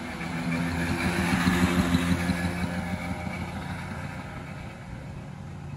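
Small scooter engine running at a fairly steady pitch, growing louder about a second in and then easing off.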